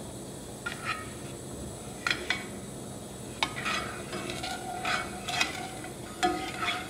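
A spoon stirring a cream and sugar mixture in an enamel saucepan on a gas burner, with irregular scrapes and taps against the pan. A few come early and they grow more frequent after about three seconds. The sugar is being stirred in to dissolve as the mixture heats toward the boil.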